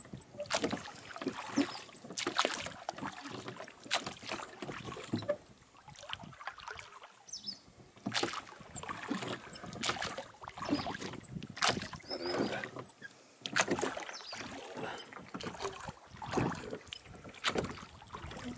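Oars of a small rowboat dipping and pulling through lake water, giving repeated splashes, with a short lull about five seconds in.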